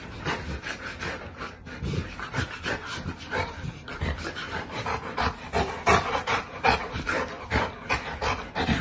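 Husky panting, with quick rhythmic breaths in and out through an open mouth.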